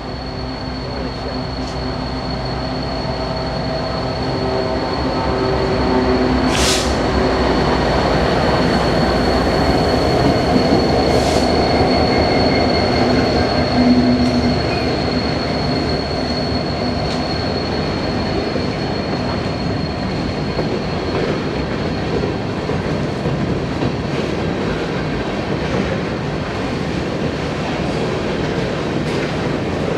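Norfolk Southern diesel-electric locomotives running slowly past, their engine drone growing louder to a peak partway through, then holding steady. A thin, steady high wheel squeal runs under it for most of the time. Two short hisses come about 7 and 11 seconds in.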